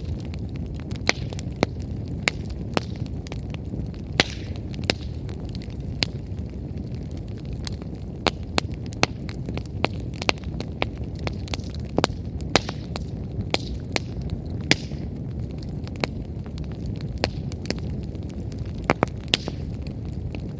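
Wood fire burning: a steady low rumble of flames with irregular crackles and sharp pops from the burning firewood, several a second.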